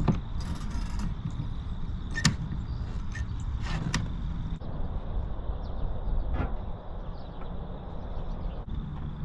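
Tractor engine running steadily, with a few sharp knocks about two and four seconds in.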